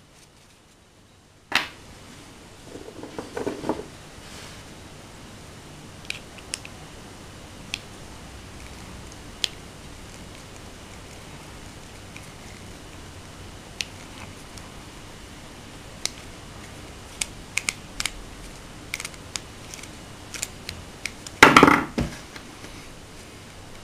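Small metal parts of a Hi-Capa airsoft pistol being handled and wiped with a paper towel: a sharp click about a second and a half in, then scattered light clicks and taps of metal. A louder burst of clatter and rustling comes near the end.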